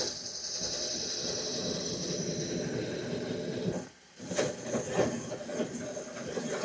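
Milling machine spindle running as a slot drill plunges through a thin 1.5 mm running-board plate, cutting chips. A high whine fades out over the first two or three seconds. The sound breaks off briefly about four seconds in, then the cutting goes on more unevenly.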